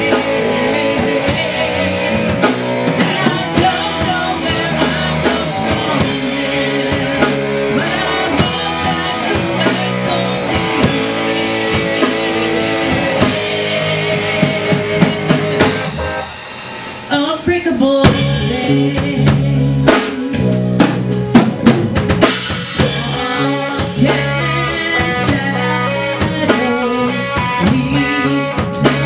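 Live rock band playing, with drum kit, electric guitar and keyboards. About sixteen seconds in, the music drops briefly to a quieter moment, then the full band comes back in with hard drum hits.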